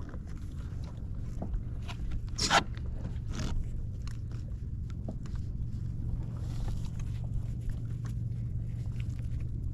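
Scattered knocks and clicks of gear being handled on a kayak over a steady low rumble, with a louder knock about two and a half seconds in and another about a second later.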